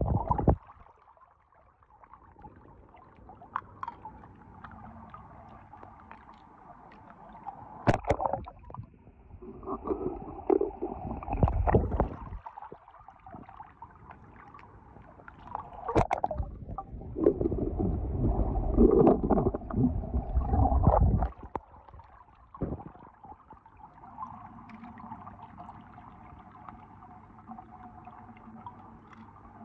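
Pool water sloshing and gurgling as a hand and a camera move through it. Two longer spells of loud churning, a third and two thirds of the way through, are set apart by quieter stretches and a few sharp knocks.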